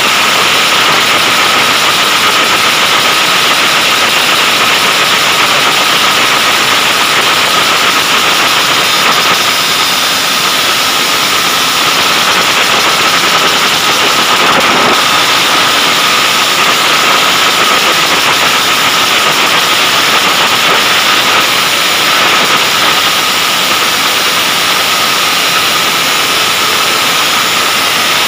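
Racing motorcycle engine held at high revs on a stand: a loud, steady, harsh drone that hardly changes.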